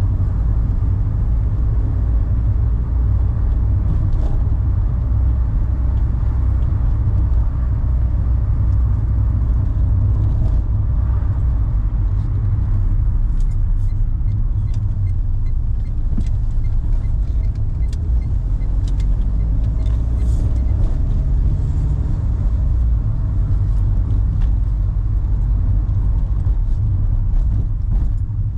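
A 2011 Renault car driving on city roads: a steady low rumble of engine and tyres.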